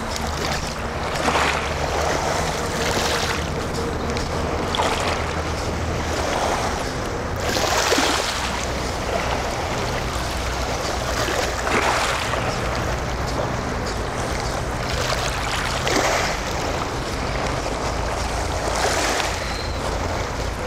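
Sea waves breaking and washing on the shore, one swell every few seconds, over a steady low rumble.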